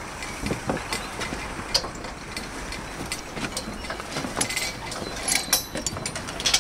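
Steel tube scaffolding being dismantled: irregular metallic clicks, clinks and knocks as tubes and couplers are handled, with a denser run of clicks about five seconds in.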